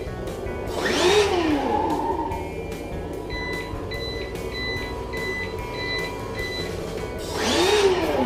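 Tamiya CC01 Pajero radio-controlled car with an ESS-One engine sound unit driving past twice: its motor, tyre and simulated engine noise swell as it comes close, the engine note rising and then falling in pitch, about a second in and again near the end.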